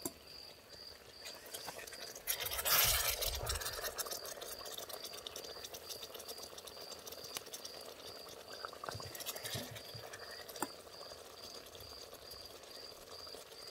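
Wooden spoon scooping hot, wet meat-and-vegetable stew out of a clay güveç pot and onto a plate: soft wet scraping and sloshing, loudest a couple of seconds in, then quieter with a few light clicks. A cricket chirps steadily in the background.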